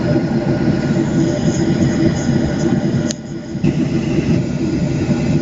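Cabin noise of a Boeing 737-700 rolling on the runway: steady noise from the CFM56 turbofans and a dense rumble from the wheels on the runway surface, heard through the cabin. A sharp click comes about three seconds in, and the noise dips for about half a second after it.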